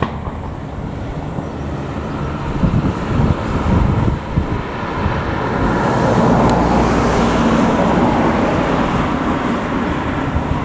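A vehicle rumbling steadily, growing louder from about the middle, with a few irregular low bumps a little before that.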